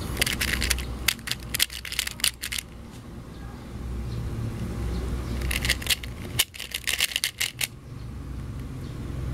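Plastic 3x3 Rubik's cube layers clicking and clacking as they are turned in quick runs of moves, two flurries a few seconds apart, over a steady low hum.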